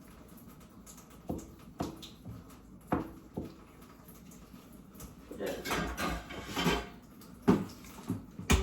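Kitchen utensil knocking and clinking against a pan and dishes: a few separate knocks in the first half, a rougher noisy stretch of about a second and a half in the middle, and more sharp knocks near the end.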